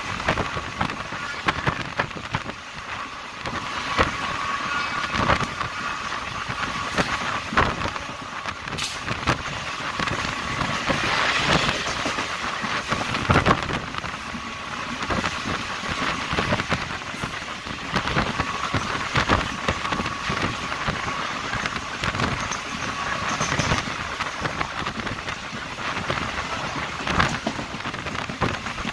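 DEMU (diesel-electric multiple unit) train running at speed, its wheels clattering over the rails in a steady stream of knocks over a rushing noise. A thin steady tone comes in at the start and again mid-way.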